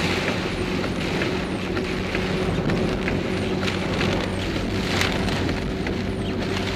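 Torrential rain pouring on a car's roof and windscreen, heard from inside the moving car as a steady hiss, with the car's low engine hum underneath.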